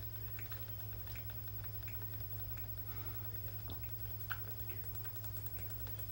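A person chugging a drink from a plastic bottle: a run of small gulping and swallowing clicks, with no pause, over a steady low hum.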